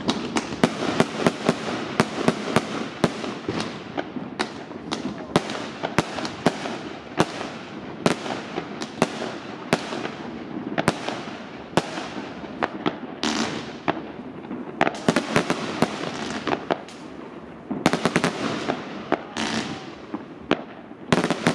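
Fireworks going off in a dense, unbroken string of sharp bangs, several a second, as rockets rise and shells burst overhead, over a continuous crackle. Two short hissing stretches stand out, about 13 seconds in and again near the end.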